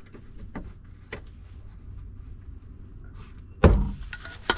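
Flathead screwdriver prying at a liftgate gas strut's end fitting: a few light clicks, then a loud sharp snap about three and a half seconds in as the socket comes off its ball stud, and another sharp click near the end.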